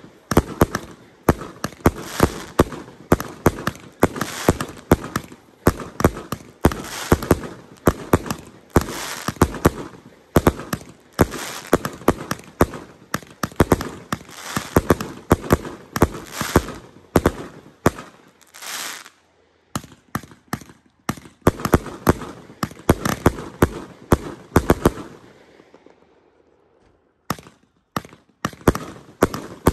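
Grand finale of several 200-gram consumer firework cakes fused together, firing in a rapid barrage of launches and bursts. The barrage breaks off briefly about two-thirds of the way through, thins out and nearly stops near the end, then picks up again with a few more shots.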